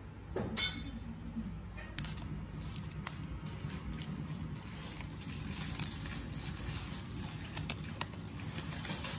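Small gift items handled on a tiled floor: a sharp knock about two seconds in as a plastic jar is set down, then light clicks and paper rustling as a small paper gift box is picked up and opened.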